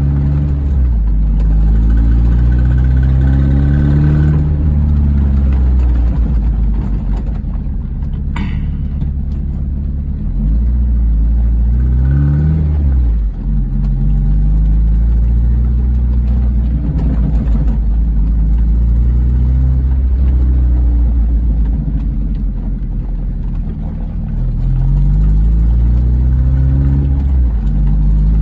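The 1.8 K-series VVC engine of a 1998 MGF runs with its speed rising and falling several times. It carries the ticking and squealing that the owner traced to a leaking exhaust manifold, cured by tightening the manifold bolts. A brief high whistle sounds about eight seconds in.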